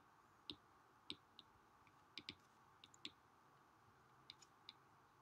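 Faint, light clicks of a stylus tip tapping on an iPad's glass screen while handwriting, about a dozen irregular ticks over a quiet background.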